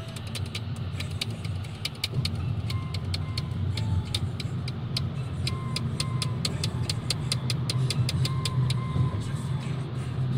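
Steady low road rumble of a car driving on a freeway, heard from inside the car. Music plays over it, with a quick ticking beat and short high notes.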